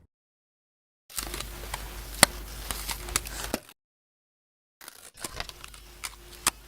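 Two bursts of gritty crackle sound effect, each about two and a half seconds long, with sharp clicks over hiss and a low hum, and cut-off silence between them. Starts about a second in.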